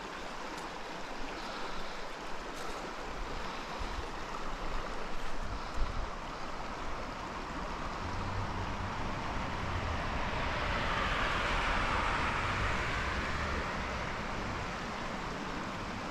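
Low trout stream's water running steadily, with a broader rushing swell that rises and then fades in the later part.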